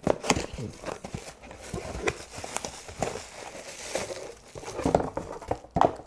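Packaging of a new replacement carburetor being opened and handled: an irregular run of crinkling, rustling and tearing, with scattered sharp clicks.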